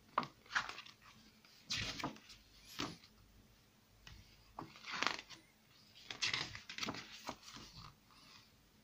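Paper booklet pages being handled and turned, with about a dozen short rustles and flaps of paper.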